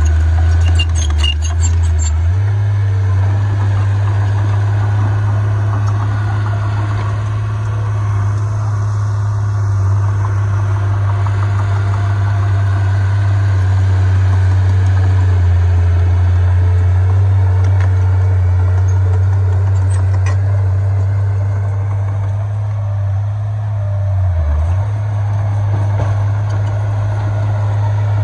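Heavy diesel engine of earthmoving equipment running steadily with a low drone. Its pitch shifts about two seconds in and dips briefly near the end.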